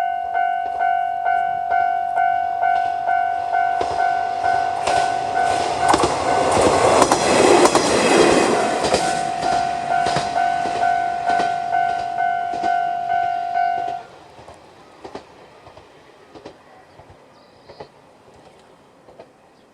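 Japanese level crossing's electronic warning bell ringing in a steady repeating ding while a Kanto Railway KiHa 2200 class diesel railcar passes, its wheels clicking over the rail joints and the train loudest about halfway through. The bell cuts off abruptly about two-thirds of the way through, leaving a few faint clicks.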